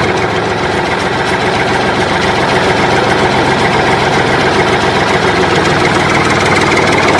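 A heavy engine running steadily, like a tractor engine at idle, cutting in abruptly and holding at an even level throughout.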